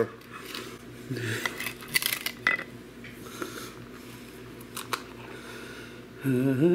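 Table knife spreading butter on toaster waffles and scooping it from a plastic tub: soft scrapes with a few sharp clicks of the knife against the waffles and plate. A voice comes in near the end.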